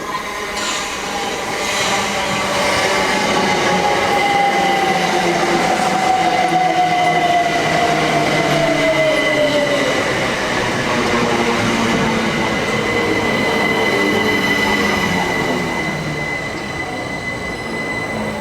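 Class 377 electric multiple unit pulling into the station, its motor whine falling slowly in pitch as it slows, with a steady high squeal.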